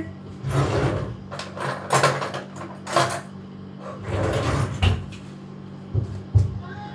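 Kitchen things being handled on a countertop: a string of short scrapes and knocks as a knife and utensils are picked up and set down, with two sharper knocks near the end.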